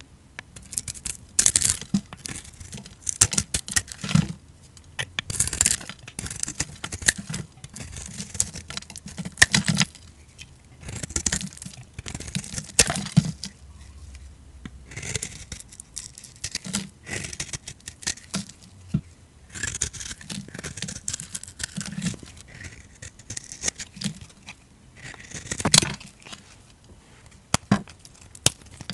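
A knife blade shaving and carving a bar of dry soap: a crisp scraping with each stroke, in repeated irregular strokes with short pauses. Near the end, thin soap slices are crumbled and snapped by hand.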